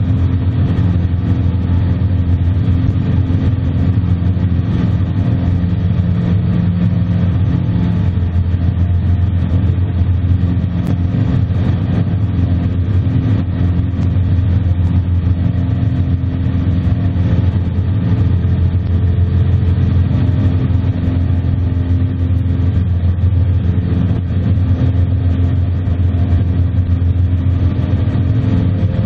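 Aviat Husky amphibian's piston engine and propeller running steadily at takeoff power, heard from inside the cockpit as the seaplane lifts off the water and climbs.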